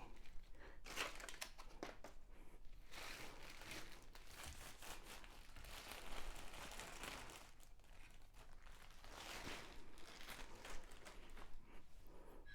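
Packaging crinkling and rustling in repeated, irregular handfuls as a light stand is unwrapped and handled.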